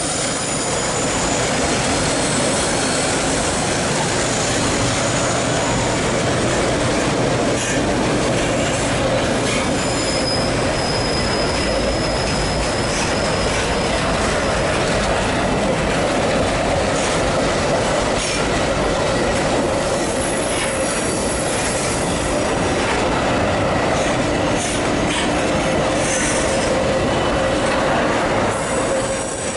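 Empty covered hopper cars of a freight train rolling past, steel wheels squealing against the rails over a steady rumble and clatter. The squeal comes in several high, steady tones.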